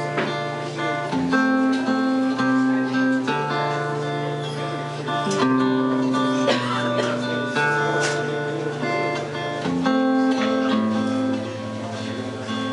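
Acoustic guitar strummed in a folk song's instrumental intro, its chords changing about every two seconds.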